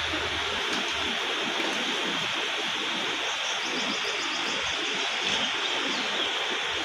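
Steady rushing noise with no clear rhythm or pitch.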